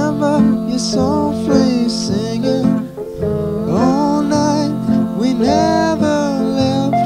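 Americana folk-rock band music led by acoustic guitar, with a melody line that slides up into its notes a couple of times.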